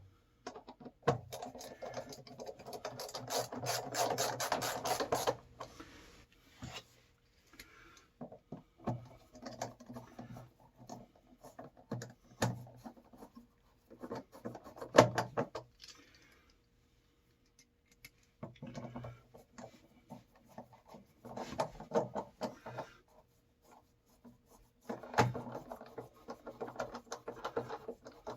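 Intermittent handling noises: rubbing and scraping with clicks, in several separate bouts with quiet gaps between them.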